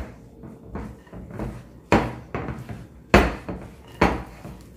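Bread dough being mixed by hand in a glass bowl: three sharp knocks on the glass, the first about two seconds in and then about a second apart, with quieter irregular mixing sounds in between.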